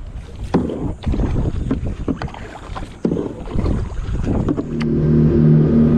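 Kayak paddle strokes splashing in the water, with wind on the microphone. Near the end a steady engine drone comes in and becomes the loudest sound.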